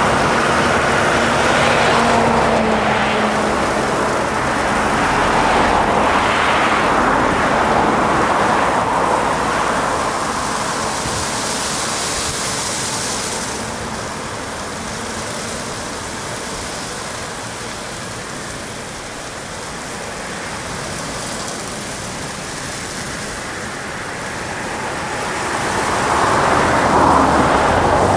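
Aquarama Stargate S111 R portal car wash spraying a car with water jets as its gantry travels along it: a steady rushing hiss that eases off in the middle and swells again near the end.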